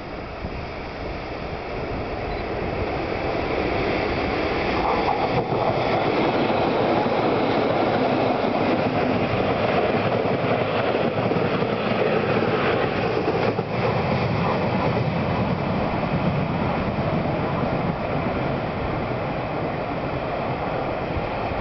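Three ED76 electric locomotives coupled together, hauling four 14-series passenger coaches, running through a station without stopping: the noise of wheels on rail builds over the first few seconds, stays loud for about ten seconds as the train goes by, then slowly fades as it moves away.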